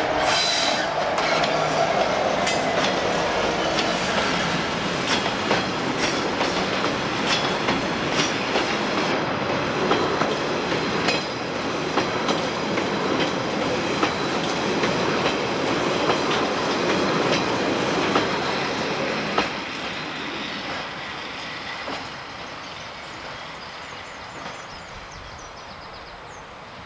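EWS Class 66 diesel locomotive passing close, its EMD two-stroke engine tone falling in pitch as it goes by. It is followed by a long train of car-carrier wagons clattering over the rail joints with some wheel squeal. The sound drops away sharply about two-thirds of the way through and keeps fading as the train recedes.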